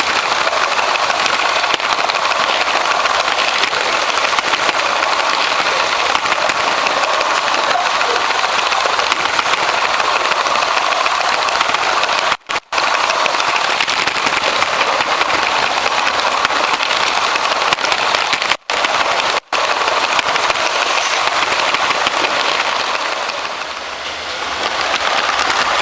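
Steady whirring rush of a LEGO train's electric motor, gearing and wheels running on plastic track, heard close from a camera riding on the train. The sound cuts out briefly three times and dips for a moment near the end.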